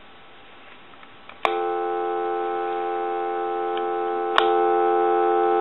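Telephone dial tone played through a Harris TS22 lineman's buttset's amplifier speaker. A click about a second and a half in brings on the steady tone. A second click about four seconds in switches it from low to high volume, and it gets louder.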